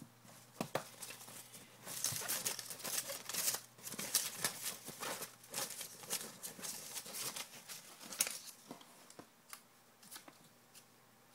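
A hand rummaging through folded paper raffle slips in a container: dense crinkly rustling with many small clicks, busiest in the middle and dying away near the end.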